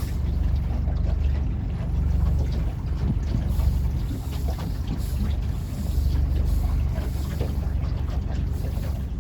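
Small boat's outboard motor running steadily, with wind buffeting the microphone.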